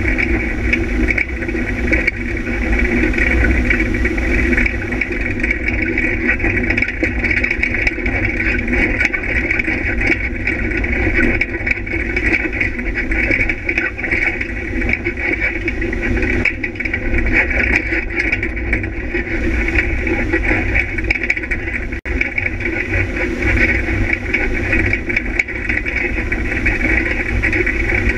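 Off-road vehicle's engine running steadily as it drives along a dirt track, heard from an onboard camera, with no let-up except an instant's dropout about 22 seconds in.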